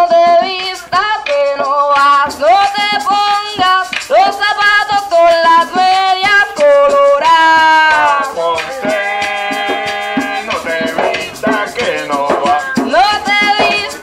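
Live Puerto Rican bomba: singing over a rattling maraca, cuá sticks clicking on wood and barril drums.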